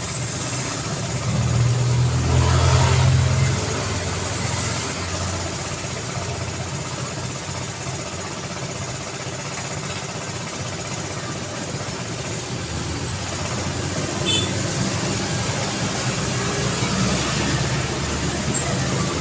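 City street traffic: steady road noise with vehicles passing. A vehicle's low engine rumble swells and fades in the first few seconds, and there is a brief high click about two-thirds through.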